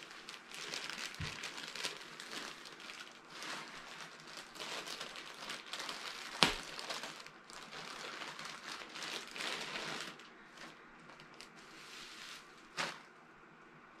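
Plastic bubble wrap crinkling and rustling as it is pulled and unfolded by hand from around a model horse, with a single sharp snap about halfway through. The crinkling dies down after about ten seconds, and there is one more short click near the end.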